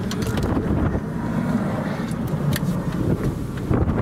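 Gusty wind buffeting the microphone, a steady low rumble that swells and eases, with a few brief crackles from gusts hitting it.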